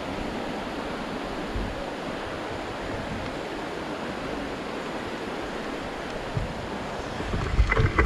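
Steady rush of a rocky mountain stream running below. A few low thumps come through it, and about seven and a half seconds in there is a short cluster of louder thumps with a clatter.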